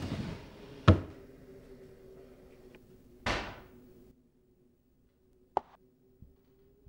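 A drawer slid shut, ending in one sharp knock about a second in. A short rushing noise follows, then a low hum cuts out and a couple of faint clicks sound.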